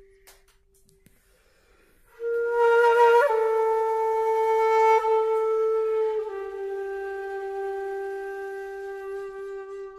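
Background music: a solo flute holding long, breathy notes. It enters about two seconds in after a near-quiet pause, then steps down to a lower held note around six seconds in.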